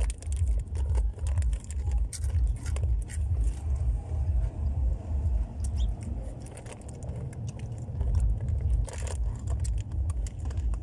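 Snack eating: scattered crunches of rolled tortilla chips and popcorn, and the rustle of a snack bag, over a low pulsing rumble.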